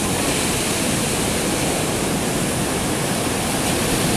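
Ocean surf breaking and washing up onto the beach, a steady, even rush of noise.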